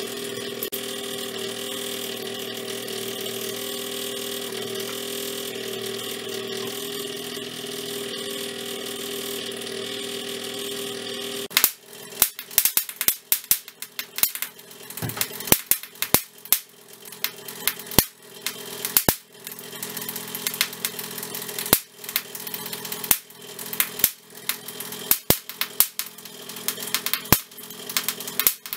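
A steady hum with a high whine, which stops about eleven seconds in. From then on, irregular sharp snapping cracks of high-voltage sparks come several a second from the apparatus lighting a gas-discharge (Geissler) tube.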